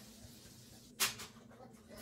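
A single short, sharp click about a second in, over a faint low steady hum.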